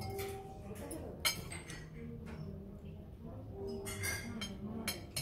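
Metal cutlery clinking against a plate while eating pasta with a fork and spoon, with a few separate clinks, the sharpest about a second in.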